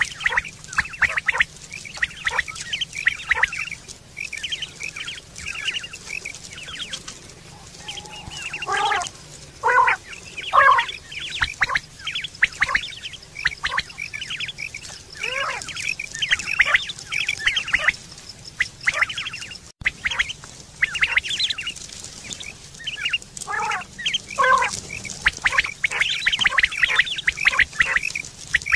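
A flock of quail calling together: a dense, continuous chorus of short overlapping calls, some of them dropping in pitch.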